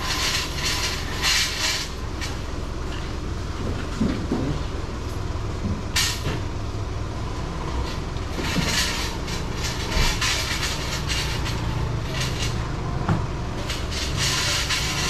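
Steady low rumble of outdoor urban background noise, under a hiss that swells and fades several times, with a few sharp knocks.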